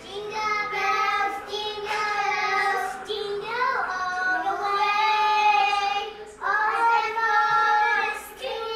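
A young girl singing a song in a child's high voice, holding long drawn-out notes in phrases with short breaths between them.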